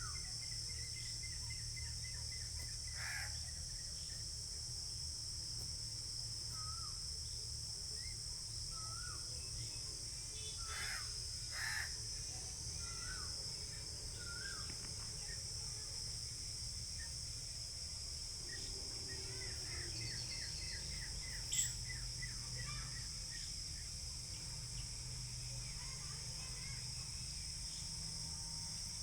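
Steady high drone of insects, with crows cawing a few times, around three seconds in and again around eleven and twelve seconds. Small birds call with short chirps and brief trills over a constant low rumble.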